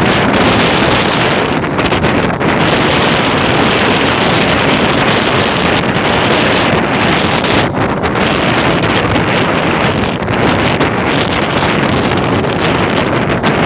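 Ocean waves and wind, a loud, steady, unbroken rush, with wind buffeting the microphone.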